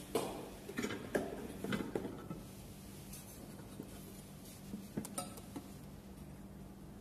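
Light knocks and clinks of a non-stick cake maker pan and its glass lid being handled, several in the first two seconds and a couple more about five seconds in, over a faint low hum.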